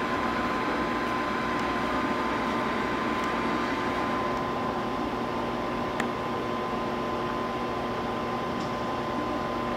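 Steady mechanical hum of electric trains standing at a railway station, with a thin constant whine over it. There is one short click about six seconds in.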